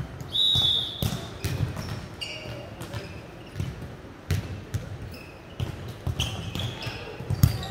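Indoor volleyball play: a short referee's whistle blast near the start, then the ball being struck and bouncing on the court floor again and again, with a loud hit near the end.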